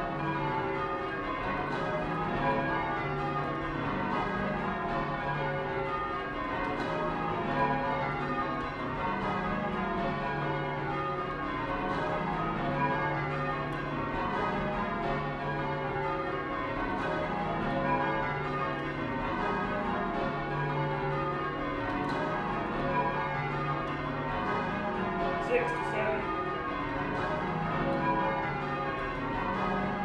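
Change ringing on a heavy ring of twelve church bells (tenor 28-2-16 cwt, in C sharp), struck one after another in a continuous, even rhythm with their tones overlapping.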